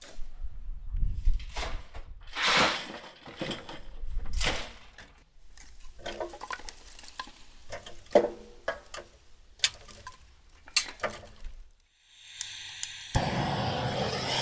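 Steel shovels scraping into and dumping loose soil, then pieces of split firewood knocking as they are stacked into a stove's firebox. About a second before the end, a propane gas torch comes on with a steady hiss.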